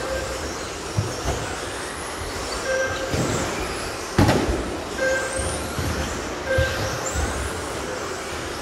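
Several radio-controlled racing trucks running on an indoor carpet track, their motors giving high rising and falling whines, with thumps and knocks as they land and hit the track edges; the loudest knock comes about four seconds in. Short electronic beeps sound every second or two, as from the lap-timing system.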